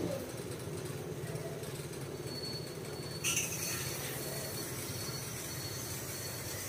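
Tap water from a garden hose pouring into an aquarium onto a plastic sheet laid over the substrate, splashing with a steady hiss. The hiss grows louder and brighter about three seconds in, over a steady low hum.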